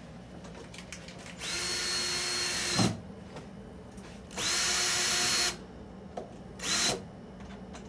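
Cordless drill driving screws into a PVC enclosure panel in three runs, each starting with a rising whine. The first run lasts about a second and a half and ends in a sharp knock, the second lasts about a second, and a short burst comes near the end.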